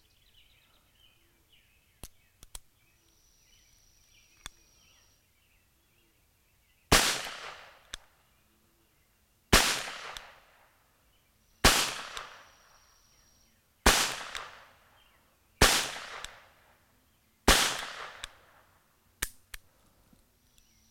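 Webley & Scott Mk IV top-break revolver in .38 S&W fired six times, a shot about every two seconds, each a sharp report with a short decaying echo. A few small metallic clicks of the revolver being handled come before the first shot, and two more come near the end.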